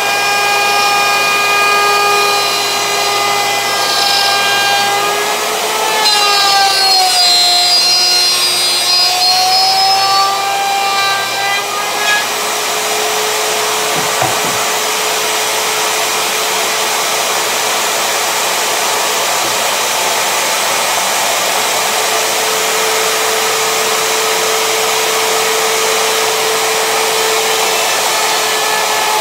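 Table-mounted wood router running at full speed with a high whine while a pine board is fed past the bit, cutting along its edge. The whine sags in pitch under load about five seconds in and recovers a few seconds later, with a rough cutting hiss that grows louder partway through.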